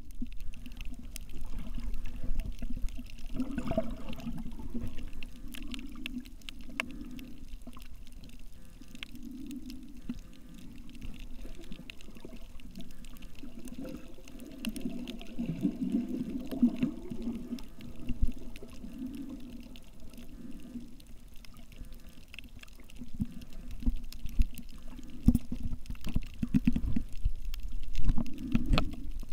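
Muffled underwater sound picked up by a submerged camera: low water sloshing that swells and fades, loudest about halfway through, with scattered faint clicks.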